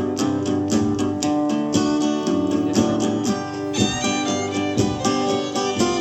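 Instrumental intro of a country song: acoustic guitar strummed in a steady, even rhythm, with higher held melody notes coming in about halfway through.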